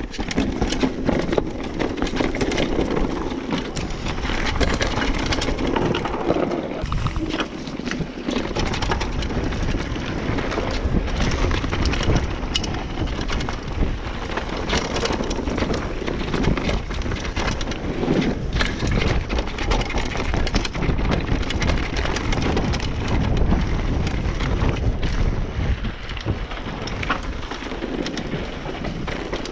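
A mountain bike riding down a rough dirt trail: wind rushing over the bike-mounted camera's microphone, with tyres rolling over dirt and the bike clattering and rattling over bumps.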